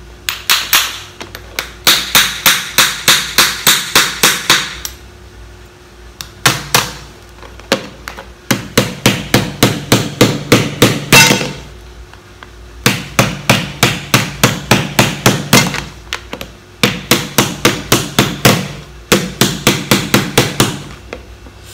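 Repeated hard blows on a mud crab claw, about four a second, in bursts of a few seconds with short pauses: an attempt to crack a claw shell too hard to open.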